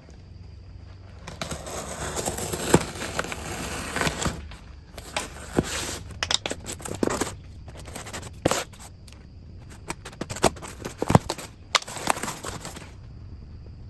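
A package being unboxed by hand, its wrapping rustled and pulled open. There is a dense stretch of rustling about a second in, followed by a run of sharp clicks and crackles.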